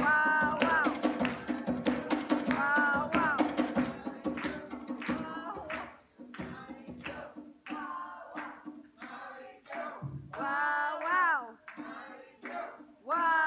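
West African talking drum and sabar drumming, with rapid sharp strokes and rising and falling pitched tones. The playing is dense for about six seconds, breaks off briefly, then goes on with sparser strokes.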